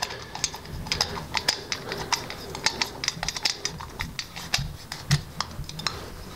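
Irregular small metal clicks and ticks of a torque wrench turning the sole-plate screw in a TaylorMade R11S driver head while the adjustable plate is reset, several clicks a second.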